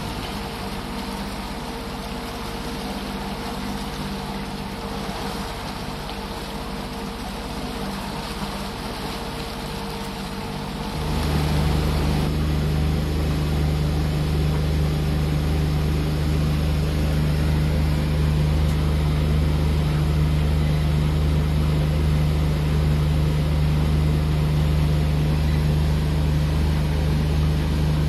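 Honda BF60 four-stroke outboard motor running steadily at about 3,000 rpm during its break-in, with water rushing past the hull. About eleven seconds in the sound changes to a louder, steady engine hum heard from inside the boat's cabin.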